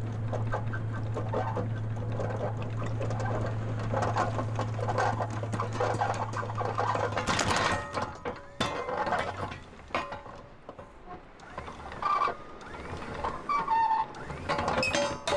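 Electric anchor windlass hauling in the anchor chain to get underway: a steady motor hum with the chain clicking through, which stops about seven seconds in. Scattered clicks and knocks follow.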